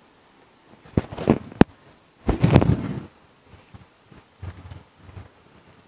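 Handling noise from a DJI Osmo Mobile 3 smartphone gimbal on its mini tripod: three sharp clicks about a second in, then a longer dull knock and rub, and a few faint taps near the end.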